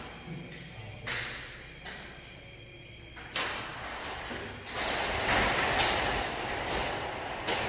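Steel folding gate worked along its rail: a few separate metal clanks, then from about five seconds in a louder, continuous rattle of the folding leaves and rollers running in the track, with a thin high whine joining soon after.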